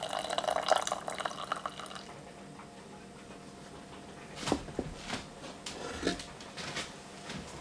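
Cider poured from a pan into a small stainless steel saucepan, splashing and trickling, stopping about two seconds in. A few light knocks follow as the saucepan is set and slid on a wooden chopping board.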